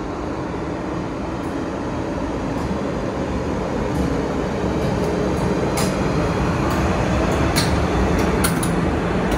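Rc3 electric locomotive with passenger coaches rolling slowly up alongside a platform, a steady rumble of wheels and running gear growing louder as it comes closer. In the second half there are a few sharp clicks.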